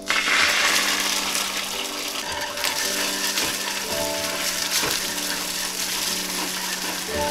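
Beaten egg hitting a hot oiled rectangular egg-roll pan, sizzling sharply as it lands and then frying steadily while chopsticks stir and scrape it, with a few clicks of the chopsticks against the pan. Soft background music plays underneath.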